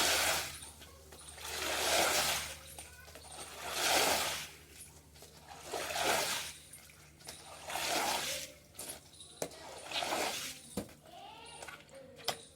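Water splashing in a steady rhythm, one long splash about every two seconds, fading into a few scattered splashes and clicks near the end.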